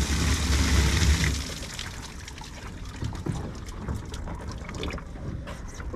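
A bucket of water poured over a person and splashing onto a boat deck. The pour stops about a second and a half in, leaving scattered drips and trickling.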